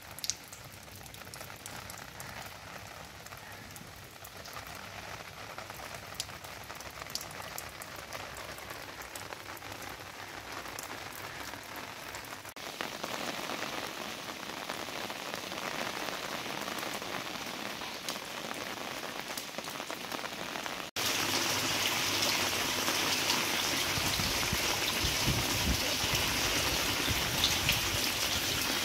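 Heavy rain falling on stone paving and walls: a steady hiss of rain with scattered separate drops. It gets louder about halfway through and much louder about two-thirds of the way through.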